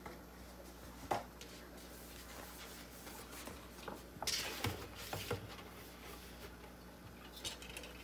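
A roll of iron-on vinyl sheet being handled and unrolled onto a cutting mat: a single click about a second in, a short plastic rustle about four seconds in, then a few light taps.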